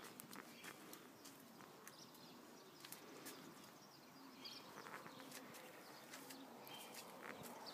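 Near silence: faint outdoor background with scattered small clicks.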